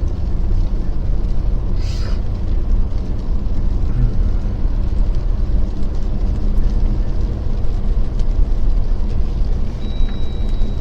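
Jeep Gladiator driving slowly on a snow-covered road: a steady low rumble of engine and tyres, with a brief hiss about two seconds in.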